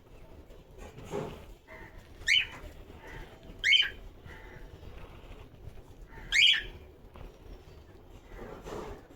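Cockatiel giving three short, loud chirping calls, the second about a second and a half after the first and the third about three seconds later.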